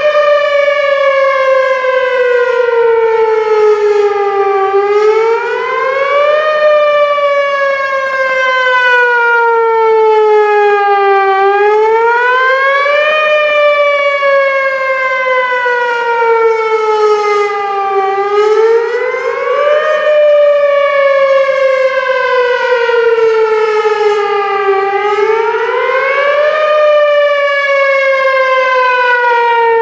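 Whelen Vortex R4 outdoor warning siren sounding the Attack/Wail signal in a tornado siren test: one loud tone that climbs quickly for about two seconds, then falls slowly for about four to five seconds, repeating about four and a half times.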